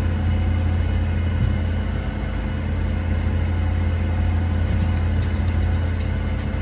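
Steady low mechanical hum with an even drone and no rhythm, like an engine running at a constant speed.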